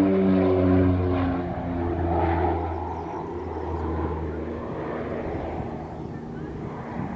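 North American OV-10 Bronco's twin turboprop engines and propellers droning in a fly-by, the note dropping in pitch in the first second or so and then fading as the aircraft flies away.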